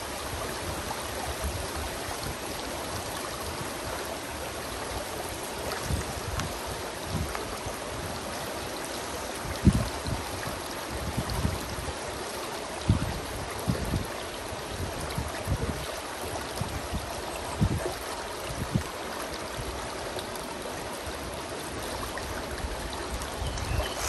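Shallow rocky creek flowing and rippling steadily over a stone ledge, with a few brief low thumps now and then.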